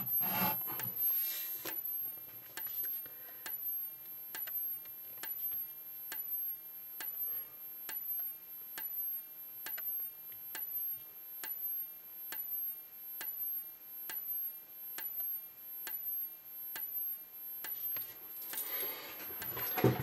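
System Sensor SP1R2475ADA 24 V, 75 cd strobe flashing on alarm, giving a sharp click with each flash under a faint high-pitched whine from its flash charging circuit. There is a rustle of handling near the end.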